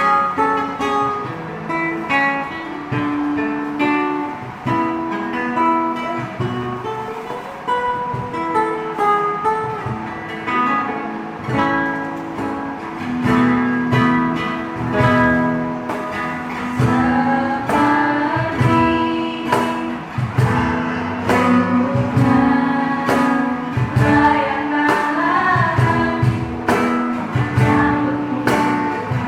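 Music with guitar, in the manner of a Christmas praise song; a sung melody comes in over it in the later part.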